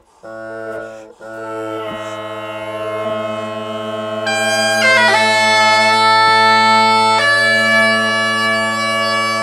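A cheap set of Highland bagpipes being struck in. The drones stutter for a moment and then settle into a steady hum. About four to five seconds in, the chanter comes in with a brief slide in pitch before holding its note, and the drone sound wavers slowly as a drone is being tuned.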